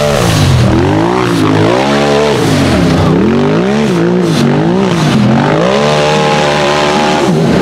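Tube-chassis UTV's engine revving hard in repeated surges, rising and falling as the throttle is worked, then held high for a couple of seconds before dropping near the end, as it claws up a steep dirt and rock hill.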